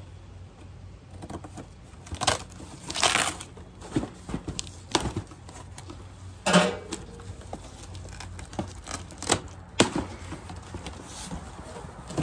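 Cardboard shipping box being cut and pulled open by hand, with scissors and packing tape: irregular rustling, scraping and tearing of cardboard and tape, broken by sharp knocks, the loudest about six and a half seconds in.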